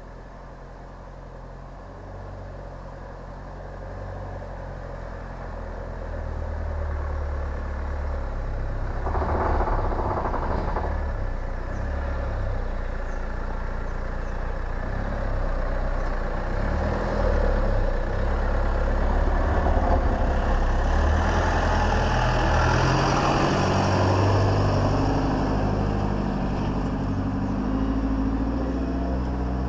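A four-wheel-drive vehicle's engine running as it drives slowly along a muddy dirt track, growing steadily louder as it approaches. As it passes, about two-thirds of the way through, the engine is loudest and tyre noise on the dirt joins it.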